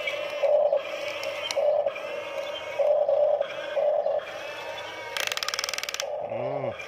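Background music with a sung or synthetic voice-like melody. Just past five seconds in, a rapid run of clicks lasts under a second, and near the end there is a short rising-and-falling tone.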